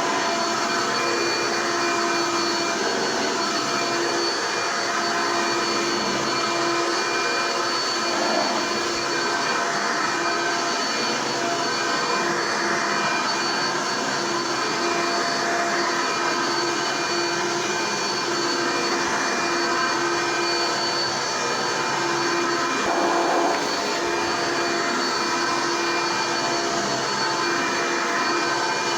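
1990s Hoover Elite commercial upright vacuum cleaner running steadily, its motor giving a constant whine over the rush of air.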